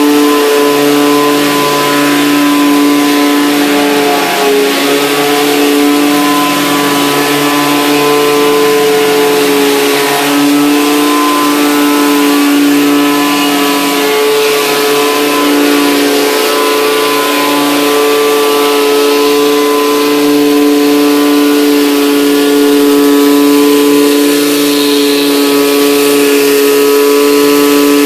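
Pressure washer's engine running steadily under load with a constant hum, over the hiss of high-pressure water spraying from a rotary surface cleaner onto wooden decking.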